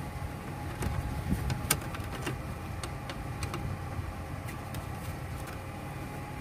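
A screwdriver and a gloved hand working at a license plate screw on the rear bumper, giving scattered light clicks and taps, most of them in the first few seconds. A steady low background rumble runs underneath.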